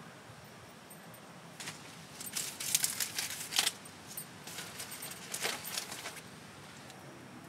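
Hands working at a wood-fired hearth: a few short bursts of crisp rustling and light clinking, loudest about three seconds in, dying away after about six seconds.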